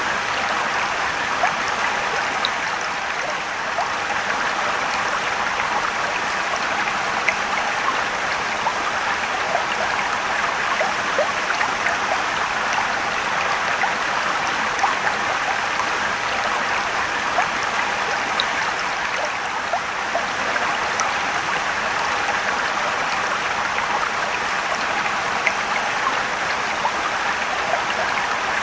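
Mountain stream or waterfall water rushing and trickling steadily, with many small splashes and droplet ticks.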